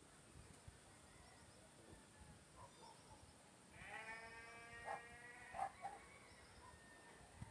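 A farm animal calls once, a single drawn-out cry lasting about two seconds near the middle, with faint bird chirps around it.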